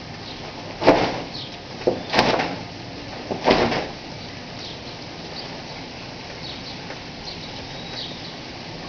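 Steady rain falling, with three loud swishes in the first four seconds, each dying away within about half a second.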